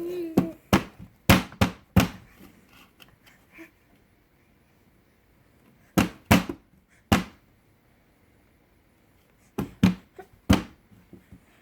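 Baby banging an object on a hard surface: sharp, loud knocks in three bursts, about five in the first two seconds, three more around six to seven seconds in, and four around ten seconds in.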